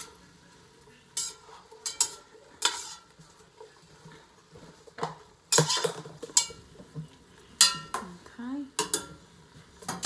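A utensil stirring vegetables in a stainless steel pot, clinking and scraping against the metal sides in irregular strokes.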